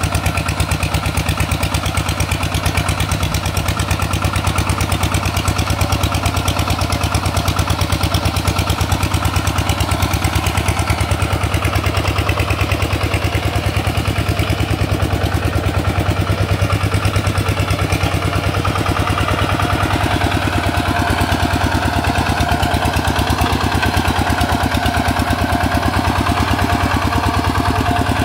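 Perfect RT 140 Plus hand tractor's engine running steadily, with a fast, even firing beat.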